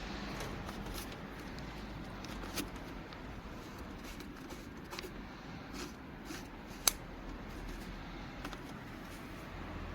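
Light handling noises: scattered soft clicks and rustles over a low, steady background hum, with one sharp click about seven seconds in.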